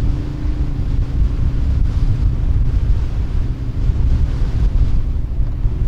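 Wind buffeting the microphone in a loud, unbroken low rumble, with a faint steady engine hum underneath.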